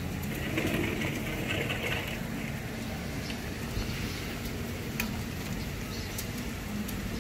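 Steady rain falling on leaves: an even hiss with many scattered drip ticks, over a faint low hum.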